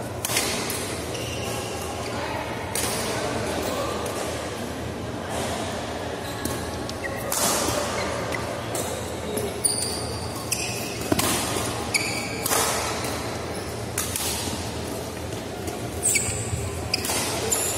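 Badminton doubles rally: a string of sharp racket hits on the shuttlecock at irregular intervals, with short high squeaks of shoes on the court mat, echoing in a large hall.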